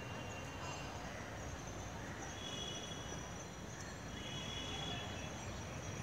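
Steady distant city traffic noise, a low rumble with faint high tones coming and going twice.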